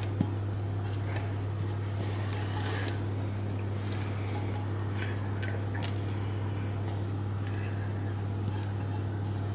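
Silicone spatula scraping melted chocolate out of a stainless steel bowl into a glass bowl of batter, with faint scrapes and a few light clinks against the bowls, over a steady low hum.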